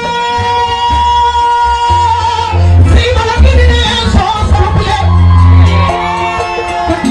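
Amplified live West African music: a woman sings into a microphone over a band with a heavy, pulsing bass and long held notes.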